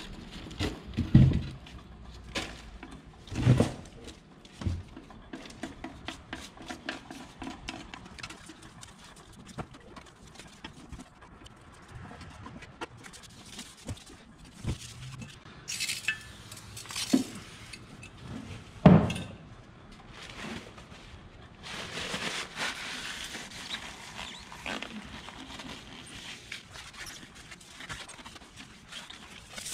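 Old grease being scraped and wiped out of a zero-turn mower's engine compartment with a plastic scraper and rags: scattered scraping, rubbing and clicks. There are a few louder knocks about a second in, at about three and a half seconds, and near the nineteenth second.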